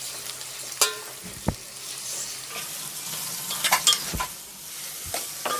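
Sliced onions frying in hot mustard oil with a steady sizzle, while a metal spatula stirs them, scraping and knocking against the metal pan several times.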